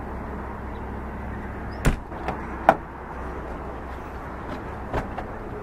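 Toyota Tundra pickup doors being opened and shut: sharp latch clacks about two seconds in, the second one the loudest, and another knock near the end, over a steady low rumble.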